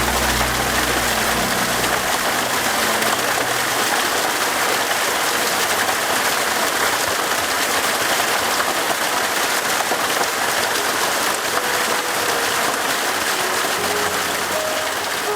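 Steady rushing of a mountain river pouring over rocky cascades and small waterfalls, an even, unbroken wash of water noise.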